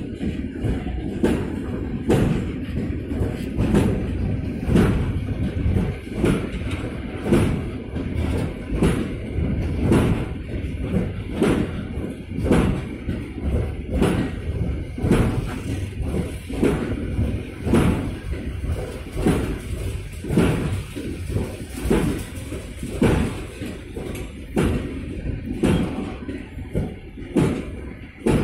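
Freight train of double-deck car-carrier wagons rolling past close by, its wheels clattering on the track in a steady run of knocks, about one to two a second, over a constant low rumble.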